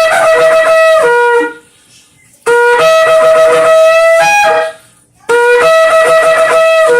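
Shofar being blown in long blasts. One blast ends about a second and a half in, and two more follow after short pauses. Each blast starts on a lower note, jumps up to a higher held note, and drops back to the lower note just before it stops.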